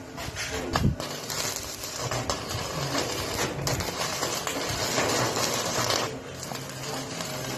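Electric arc welding: the arc gives a steady crackling hiss that breaks off briefly twice, in the middle and about three quarters of the way in.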